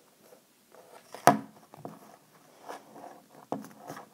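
Handling noise from a tablet in a rubber case on a tabletop: a sharp knock about a second in, then several softer knocks and rubs as it is moved and lifted.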